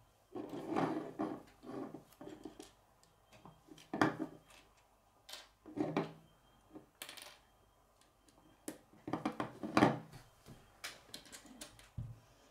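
Plastic K'nex rods and connectors clicking and clattering on a wooden tabletop as pieces are picked from a loose pile and snapped together, in irregular spells with louder clatters about four, six and ten seconds in.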